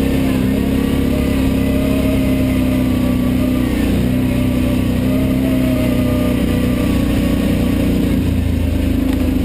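ATV engine running steadily while riding, its pitch dipping briefly about four seconds in.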